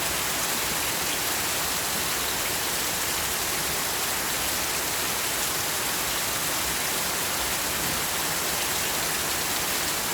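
Heavy rain falling steadily in a storm, a dense even hiss of drops on surfaces.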